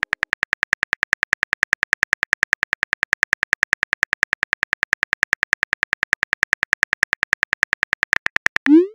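Simulated phone-keyboard typing sound effect: a rapid, even stream of sharp key clicks, about eight a second, as a text message is typed out. Near the end the clicks stop and a short rising swoosh sounds as the message is sent.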